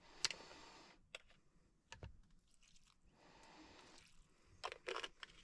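A few faint, sharp clicks and taps spread across a quiet stretch, the loudest about a quarter second in and a small cluster near the end.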